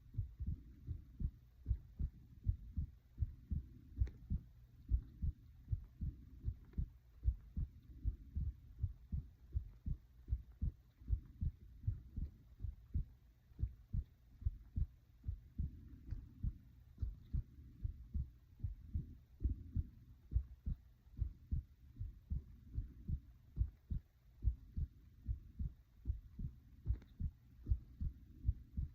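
A person's heartbeat: a steady run of regular low thuds.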